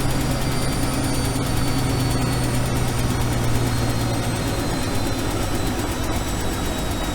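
Washing machine running: a steady motor hum with a faint high whine that slowly drops in pitch. The low hum eases off about four seconds in.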